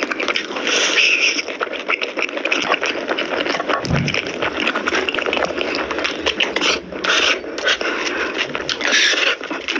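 Close-miked eating: wet chewing and lip smacking on spicy mutton nalli curry, with dense clicking mouth sounds and a few louder slurps, about a second in and again near the end.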